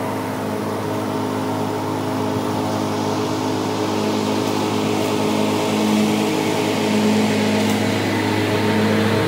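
John Deere X320 lawn tractor's engine running steadily while mowing, growing a little louder from about six seconds in as it comes closer.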